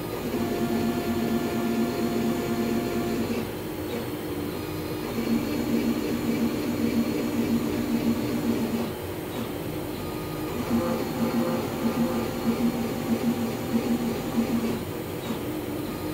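Pocket NC v2-50 desktop five-axis CNC mill thread-milling M3 holes: the spindle and axis motors whine steadily, in a cycle that repeats about every five to six seconds with a brief quieter dip between passes.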